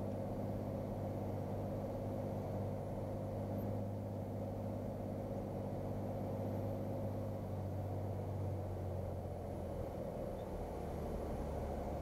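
Cirrus SR22's six-cylinder piston engine running steadily, heard inside the cabin, with its note dropping lower about two-thirds of the way through as power comes back on landing.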